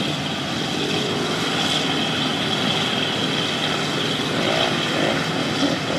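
Lifted mud truck's engine running steadily as the truck crawls through a muddy water hole.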